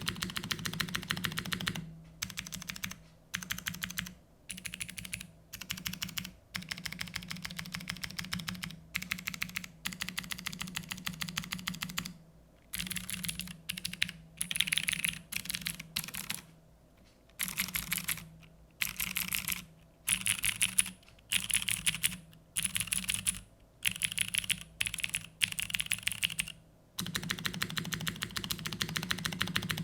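Typing on a mechanical keyboard with clicky Cherry MX Blue switches in a carbon fibre plate, under GMK keycaps: sharp, loud key clicks in fast runs. The typing is continuous at the start and near the end, and in between comes in short runs broken by brief pauses.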